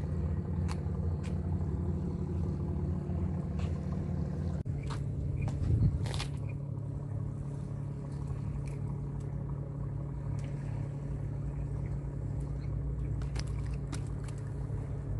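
A small engine running steadily at a low, even note, its pitch shifting slightly about five seconds in, with scattered light clicks and one louder knock about six seconds in.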